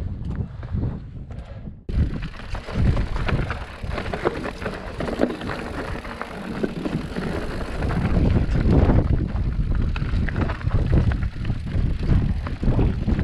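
Mountain bike riding over rough, stony ground: tyre noise and the bike rattling, with wind buffeting the microphone. The sound changes abruptly about two seconds in.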